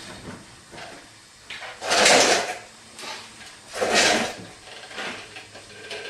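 Two loud, half-second scraping noises about two seconds apart, with fainter knocks between: hand work on a 22.5-inch truck tire as the last strap is fitted and the bead is worked onto the steel wheel.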